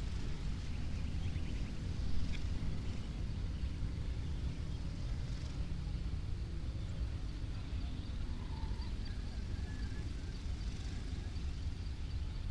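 Village dawn ambience: a steady low rumble with faint, scattered high bird chirps over it, and a couple of short calls near the end.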